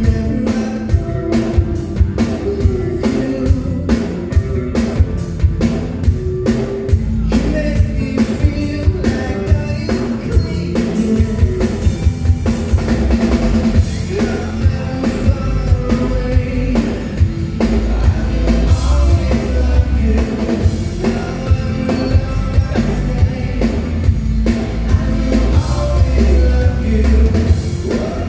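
Live rock band playing a song with a drum kit keeping a steady beat, under a lead vocal.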